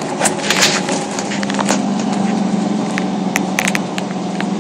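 Airport apron bus heard from inside the cabin as it drives across the tarmac: a steady drone from the drivetrain, with scattered sharp clicks and rattles from the bus interior, thickest about half a second in and again near the end.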